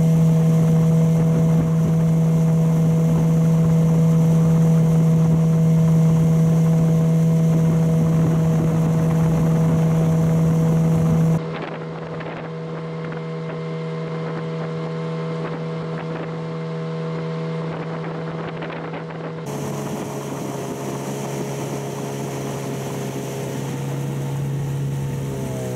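Hidea 9.8 outboard motor running steadily under way, with wind noise on the microphone. It is loud for the first eleven seconds or so, then quieter, and its note drops near the end as the motor slows.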